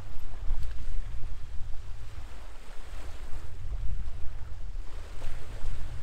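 Wind buffeting the microphone: a loud, gusty low rumble with a fainter hiss above it.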